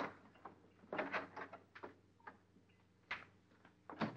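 Light household knocks and clicks: a sharp knock at the start, like a door shutting, then a quick run of clicks about a second in, like footsteps on a kitchen floor, and two single knocks later on.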